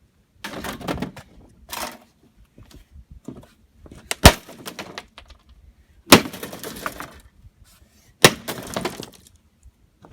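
A vintage circuit board being struck again and again with a hand tool. There are sharp cracking hits with clattering and crackling after them, and the three loudest come about four, six and eight seconds in.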